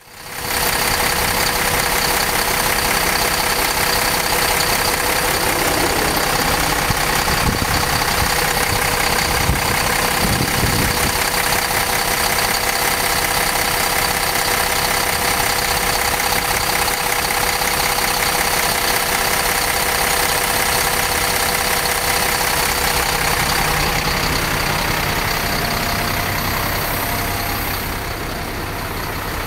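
Rear-mounted diesel engine of a highway coach bus idling with the engine compartment open: a steady running hum with a steady high whine over it. It grows quieter near the end.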